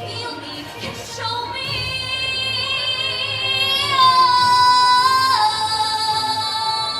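A woman singing long, high held notes, her voice stepping down in pitch about five seconds in.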